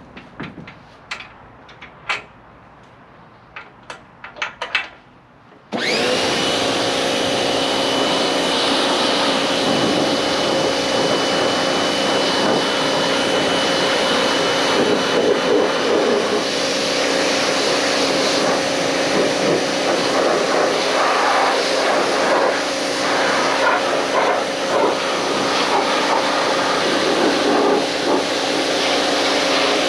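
A few light clicks and knocks, then about six seconds in an electric pressure washer's motor and pump start suddenly and run steadily and loudly, with a steady whine.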